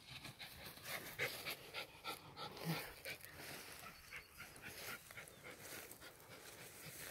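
A Japanese Spitz dog panting in quick, uneven breaths.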